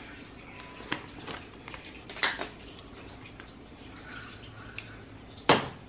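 A few light clicks and taps of metal measuring spoons against a glass spice jar while dried basil is scooped out, with a louder knock near the end.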